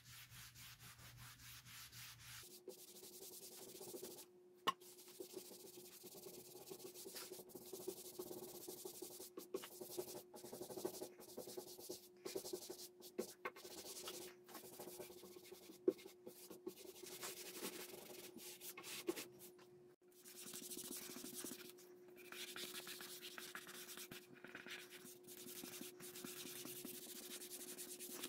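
Cloth pad rubbed back and forth over bare wood by a gloved hand, wiping on a dark finish: a faint, uneven swishing with a steady low hum under it from a couple of seconds in.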